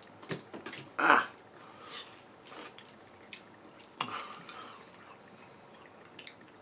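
Close-up eating sounds of a sauced chicken wing: wet chewing, lip smacks and small clicks, with a loud wet bite or slurp about a second in and another at about four seconds.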